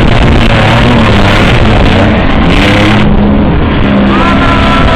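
Very loud engine of a lifted pickup truck revving hard as it churns through a mud pit, its tyres throwing mud. The revs climb and hold high about four seconds in.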